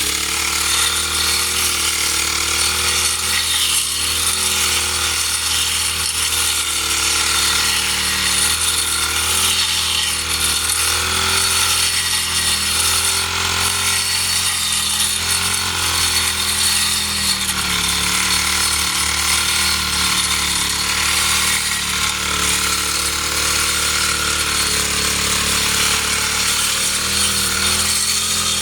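Small engine of a grass-cutting machine running steadily at high speed, with a constant pitch and no breaks.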